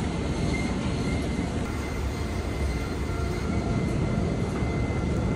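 Steady low rumble of a moving vehicle, which cuts off abruptly near the end.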